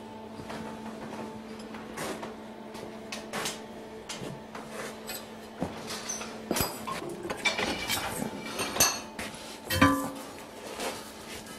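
Scattered metallic clinks and knocks of hand tools and metal pieces being handled on a smith's workbench, coming more thickly in the second half. A steady hum underlies the first half and then stops.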